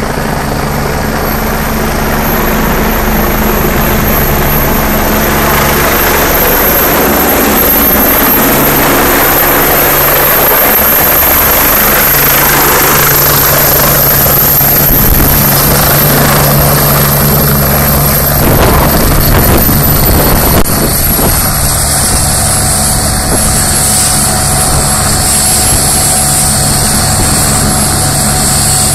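Turbine helicopter flying overhead and coming in to land, with a steady high turbine whine over the rotor noise. About twenty seconds in, the sound changes and settles into a steadier whine as the helicopter sits on the ground with its rotor still turning.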